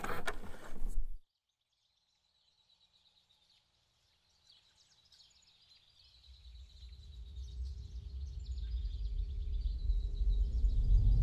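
A mechanical noise cuts off suddenly about a second in, leaving faint forest ambience of bird chirps. From about six seconds a low rumble fades in and swells steadily.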